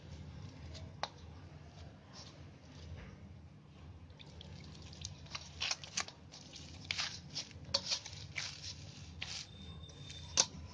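Hands kneading soft rice-flour dough mixed with grated cucumber and onion in a steel plate: faint squishing and pressing, the strokes coming thicker in the second half, with a few sharp clicks, the loudest near the end.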